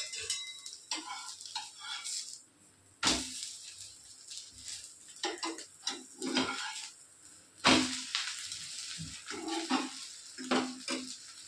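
A dosa sizzling on a hot tawa while a metal spatula scrapes and clinks against the pan, with two sharp metal clanks, about three seconds in and again about eight seconds in.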